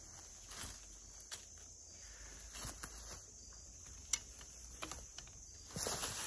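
Faint rustling and scattered clicks of dry leaves and clothing as a dead whitetail buck is lifted by its antlers and shifted on the leaf litter, over a steady high insect hum; the rustling grows louder near the end.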